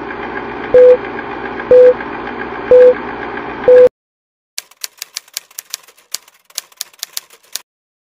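Film countdown-leader sound effect: a rattling projector whirr with a short beep once a second, four times, cutting off suddenly about four seconds in. Then comes a rapid run of sharp clicks, like typing, for about three seconds.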